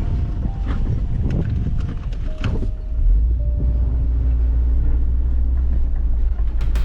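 Four-wheel-drive vehicle driving on a rough sand track: a low rumble with knocks and short squeaks at first, then a heavier, steady rumble from about three seconds in.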